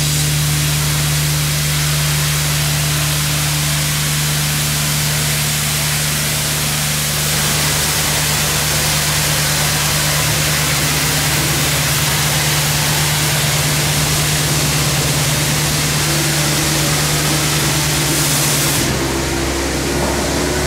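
Rollover car wash gantry spraying a van with high-pressure water jets: a steady hiss of spray over the steady hum of the wash machine's pump and drive. The hiss thins and the hum changes near the end.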